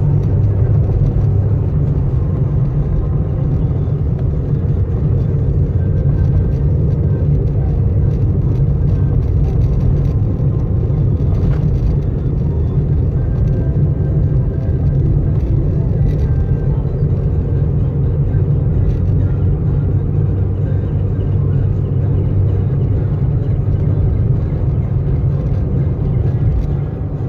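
Steady engine and tyre rumble inside a car's cabin as it drives along at an even speed.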